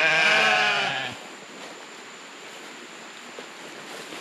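A Katahdin sheep bleating once, a single loud bleat about a second long right at the start.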